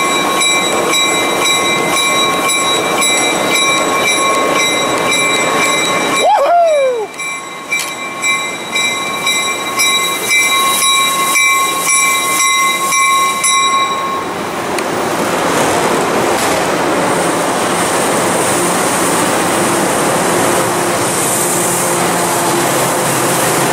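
Coaster commuter train pulling out of the station. A steady ringing bell runs to a little past halfway and stops, with a short falling squeal about a quarter of the way in. After that comes the broad rushing noise of the train rolling past.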